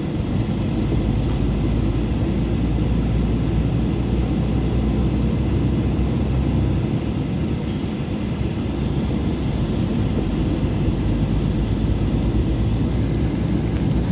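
Steady low rumble of a car driving along a road: road and wind noise from the moving vehicle.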